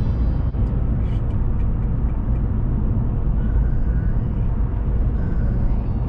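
Steady low rumble of a car driving along a highway: tyre and engine noise at cruising speed.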